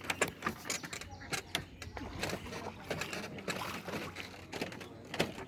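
Irregular water splashing and sloshing from a large hooked katla carp being brought in and landed at the pond's edge, with faint voices in the background.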